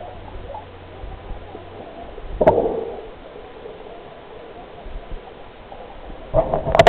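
Muffled underwater sound picked up by a camera held just below the water's surface, a steady dull wash of water noise. A sudden louder burst comes about two and a half seconds in, and a cluster of louder bursts near the end.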